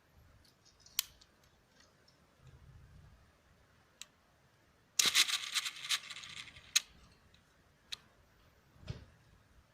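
Plastic clicks and snaps from a Lego rubber band pistol's mechanism: single sharp clicks spaced a second or more apart, and a loud, dense rattle of rapid clicks lasting about a second, about five seconds in.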